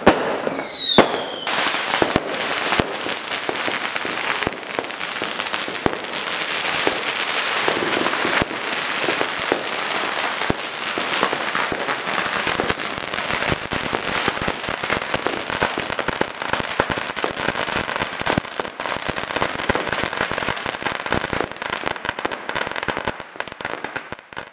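Fireworks: a ground fountain firework hissing while dense firecrackers crackle and pop without pause, with a short falling whistle about a second in. The noise fades near the end.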